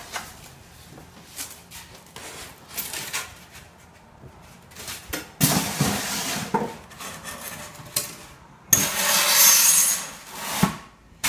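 Cardboard shipping-box flaps being pushed open and polystyrene foam packing pieces scraped free and lifted out: bursts of rubbing and scraping with a few knocks, the loudest a scrape of about two seconds near the end.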